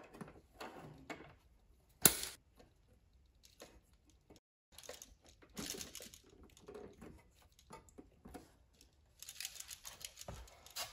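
Light handling noises of wiring work in a metal electrical box: scattered clicks and scrapes of a hand tool and copper ground wire against the steel box while the ground conductor is fastened to the green ground screw. One sharp click about two seconds in is the loudest sound, with a denser run of scraping near the end.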